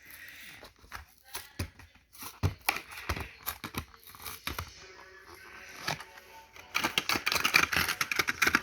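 Plastic and cardboard toy-car packaging being handled and opened, with scattered clicks and crinkles. Near the end it turns into a dense, louder run of rapid crackling.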